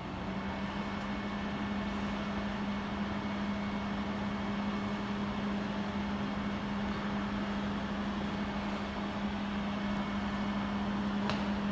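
Stand-type jewelry laser welding machine powered on and running with a steady low hum over a constant whir, starting as the emergency stop is released. A single short click near the end.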